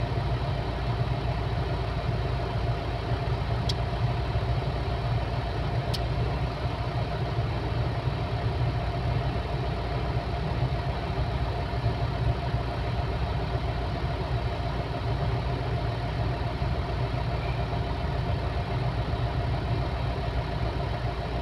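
Large diesel engine of a LiuGong 950E crawler excavator running steadily under working load as it swings and loads. Two faint high clicks come about 4 and 6 seconds in.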